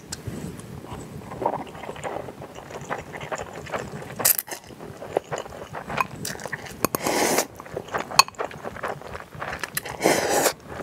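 Close-miked mukbang eating of spicy instant noodles: wet chewing and mouth clicks throughout. Two louder slurps of liquid from a glass bowl, one about seven seconds in and one near the end.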